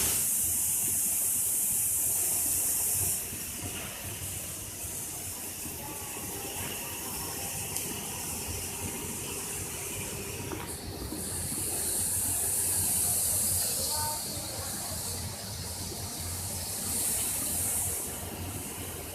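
Blast furnace tapping of molten pig iron: a loud, high hiss over a steady low hum. The hiss drops back after about three seconds, swells again midway and briefly near the end.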